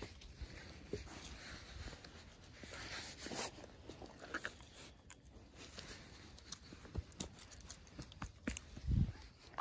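Footsteps of a person and a dog walking on a trail: irregular crunches and clicks, with a dull thump about nine seconds in.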